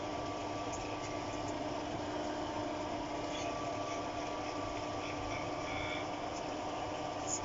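A steady mechanical hum holding a few even tones, with a few faint light handling sounds partway through.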